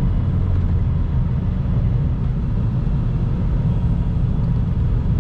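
Steady low rumble of a Honda Civic Si cruising at a constant pace, its engine and tyre noise heard from inside the cabin.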